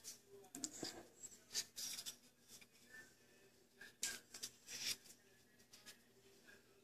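Faint clicking and rubbing of small wooden toy-car parts being handled: a wooden wheel being worked onto the dowel axle of a 2x4 toy car. The noises are scattered and come a little louder about four seconds in.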